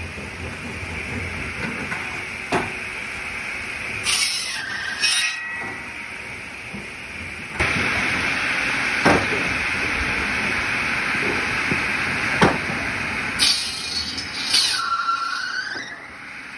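Large cart-mounted circular saw running with a steady whine, biting through logs twice, about four seconds in and again near the end, each cut a screech with a whine that falls in pitch. A few sharp knocks of wood in between.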